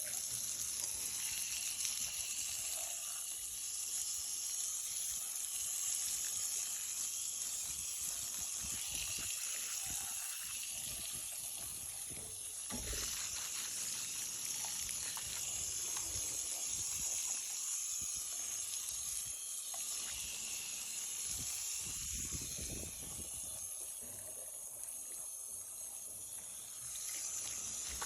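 Water running and hissing over a plastic NERF blaster being washed, with faint irregular scrubbing and handling noises mixed in.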